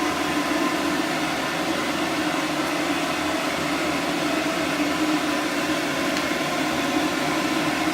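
Pet grooming dryer running steadily: a constant rush of blown air over a low motor hum, unchanging throughout.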